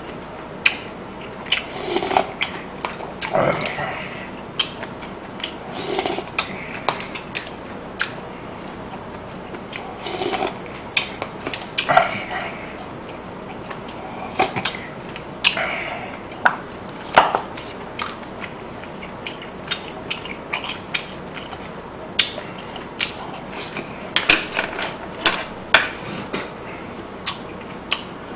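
Close-miked eating: a spoon sipping red soup from a small cup, with brief slurps every few seconds and a steady run of sharp mouth and chewing clicks.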